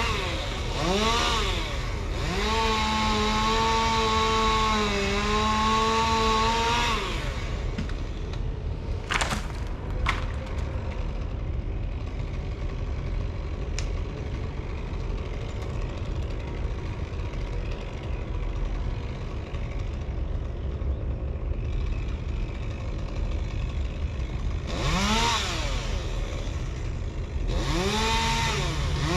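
Chainsaw revved in quick bursts, then held at high revs for about four seconds before dropping back to a low rumble. It revs up again near the end and holds high.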